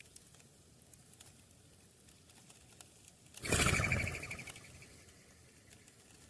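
A quick fluttering rush of wingbeats, as of a dove taking flight, starting about halfway through and fading over a second or so, over faint small ticks and taps.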